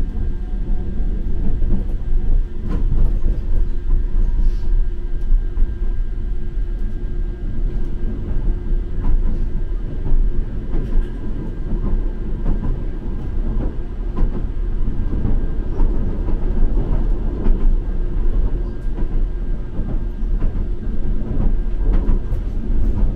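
A Lidingö line tram running along its track, heard from inside the car: a steady low rumble with wheel-on-rail noise and a constant hum, and a few light clicks.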